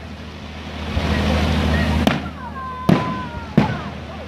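Fireworks display: three sharp bangs of shells bursting about two, three and three and a half seconds in, with whistling tones between them, over a steady low hum.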